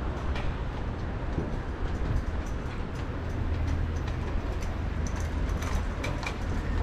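City street ambience: a steady low rumble of traffic and wind, with scattered light clicks and taps.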